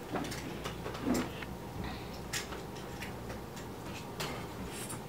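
Irregular light clicks and knocks of a DSLR camera and tripod being handled and adjusted, with a soft low knock about a second in.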